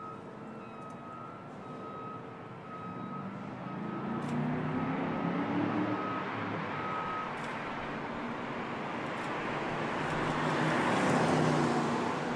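Chevrolet Camaro Z/28's 7.0-litre V8 approaching under acceleration, its engine note rising in pitch four to six seconds in and growing louder as the car comes close. A repeating electronic beep sounds faintly behind it for the first half.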